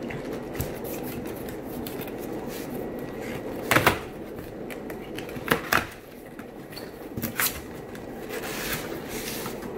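Several short knocks and clatters of a fish shipping box and its contents being handled and opened, over a steady background hum.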